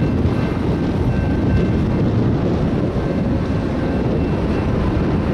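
Wind buffeting the microphone, a steady low rumble with no breaks, with faint thin high tones that come and go.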